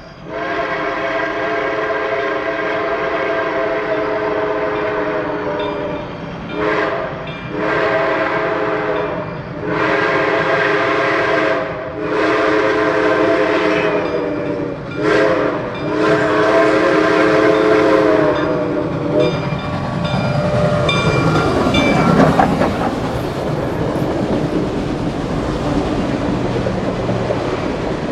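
Reading & Northern 425, a 4-6-2 Pacific steam locomotive, sounding its multi-note chime whistle for a grade crossing: a series of long blasts with one short blast before the final long one, which ends about 19 seconds in. The locomotive then passes close by, followed by passenger cars rolling over the rail joints with a steady clickety-clack.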